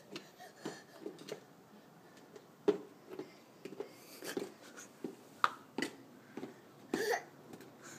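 A toddler's footsteps in adult-sized women's shoes on concrete: irregular taps and scuffs, with sharper clacks about a third of the way in and again near the end.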